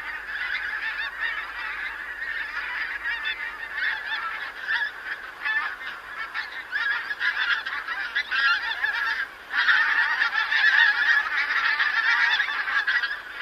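A large flock of pink-footed geese calling together: a dense, continuous clangor of many overlapping honks. It dips briefly a little past halfway, then swells louder.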